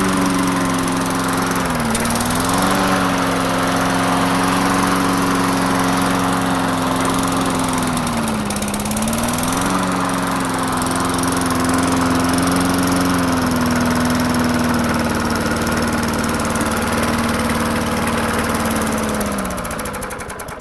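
Old Craftsman lawn mower's Tecumseh engine running cold, its speed sagging and recovering twice, then winding down and stopping near the end. The engine runs poorly until warm.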